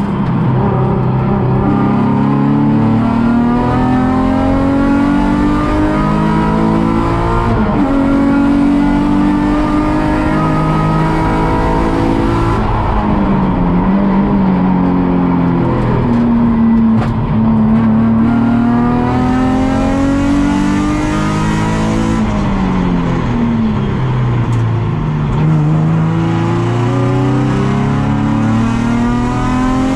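Nissan 350Z's 3.5-litre V6 racing at full throttle, heard from onboard. Its pitch climbs through the gears with quick drops at each upshift, then falls away in two downshift sweeps under braking, about halfway through and again about three quarters in, before it pulls hard again.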